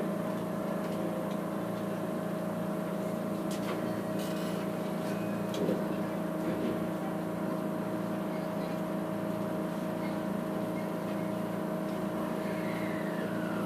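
Steady electrical hum of a JR West 207 series electric train standing still, heard from the gangway between two motor cars, with faint metallic rattles from the gangway plates.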